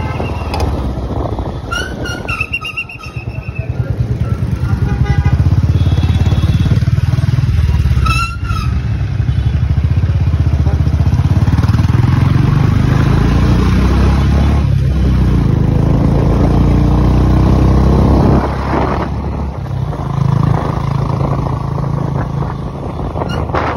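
Motorcycle engine running under the rider on a slow ride, a steady low rumble that slows about three seconds in, pulls harder until about eighteen seconds, then eases off. Short horn beeps sound about two seconds in and again around eight seconds.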